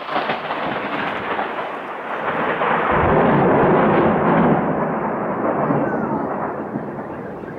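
Thunder after a lightning flash: it breaks in suddenly, rolls on in a long rumble that is loudest about three to four seconds in, then slowly fades away.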